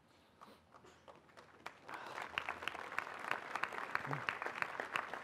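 Crowd applauding. After a quiet start, the clapping begins about two seconds in and swells into steady applause from many hands.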